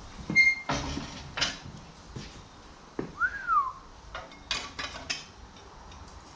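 Sheet metal and hand tools clattering in a workshop, with several short knocks and a brief metallic ping near the start. About three seconds in comes one short whistled note that rises and then falls.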